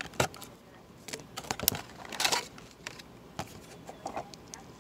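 Toy packaging being opened by hand: irregular clicks and crackling rustles of a cardboard box and its clear plastic blister tray, with a longer crinkling burst about two seconds in.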